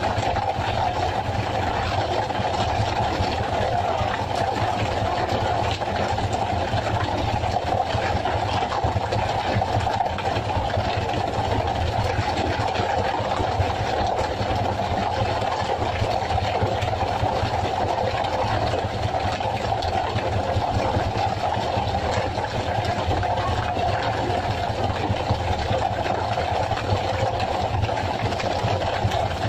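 Fishing boat's engine running steadily, an even, unbroken drone.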